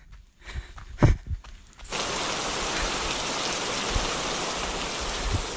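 A couple of heavy, low thumps, then steady heavy rain that starts abruptly about two seconds in.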